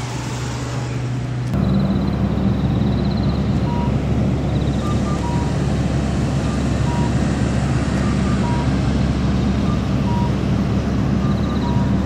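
Steady low hum of vehicle engines at a road crossing, getting louder about a second and a half in, with faint short beeps and a few high chirps over it.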